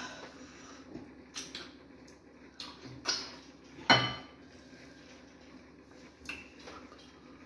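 Close-miked eating by hand: fingers working fufu in a ceramic bowl of banga soup, with a series of short clinks and wet mouth sounds, the loudest about four seconds in with a brief ring.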